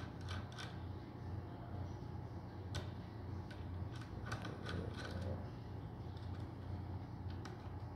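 Irregular small metallic clicks and ticks as the stroke adjustment is unscrewed and worked out of an HHS DDL cold glue head, over a steady low hum.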